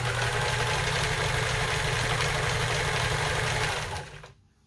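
Kenmore 158.14000 vintage sewing machine running at a steady speed, stitching a stretch stitch: an electric motor hum with rapid needle-and-feed clatter. It slows and stops about four seconds in.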